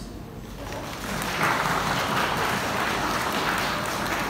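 Audience applauding in a hall, the clapping building up about a second in and then holding steady.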